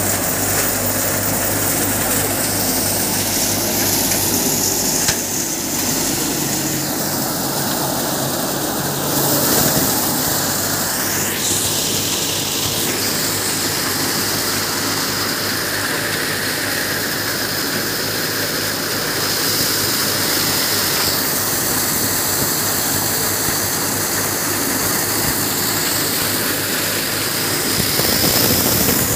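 Kamdhenu thresher running at work, threshing crop stalks fed by hand into its hopper: a loud, steady mechanical din.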